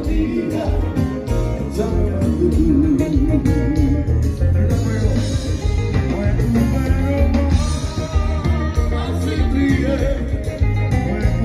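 Loud live band music: a singer with electric guitars, bass and drums over a heavy bass beat.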